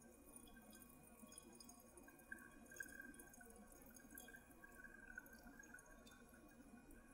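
Very faint trickle of hot water poured in a thin stream from a gooseneck kettle onto coffee grounds in a V60 pour-over dripper.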